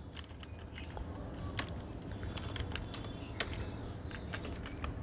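Computer keyboard typing: irregular light keystroke clicks, several a second, over a low steady hum.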